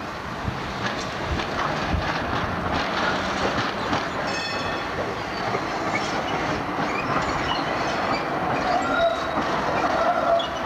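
Articulated street trams rolling past close by, steel wheels clacking over rail joints and points. Thin squealing tones from the wheels come in during the second half as a tram takes the curve.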